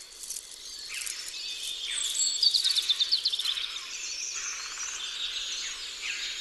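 Field ambience of birds chirping and insects trilling, with a short fast trill about two and a half seconds in.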